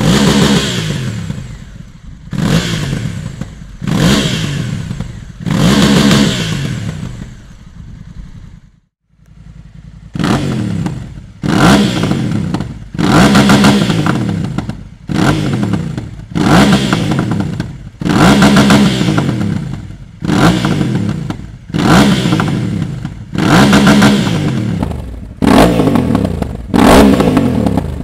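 Honda CRF1100L Africa Twin's parallel-twin engine free-revving on its stand through a Dominator HP7 slip-on exhaust, blipped sharply about every two seconds, with the revs falling back after each blip. After a brief gap about nine seconds in, the same engine on a full Dominator HP7 exhaust system is louder and blipped faster, roughly every second and a half.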